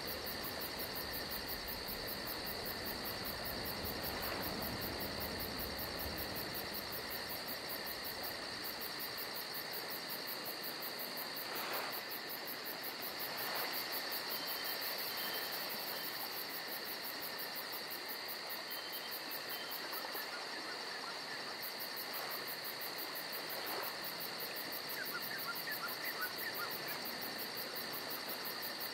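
Steady chorus of insects trilling continuously, with a fast high pulsing over it. A few faint short chirps come through in the middle and near the end.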